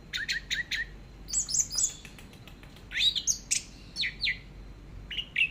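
Orange-headed thrush singing: short phrases of quick, sharp notes that sweep up and down, with brief pauses between phrases.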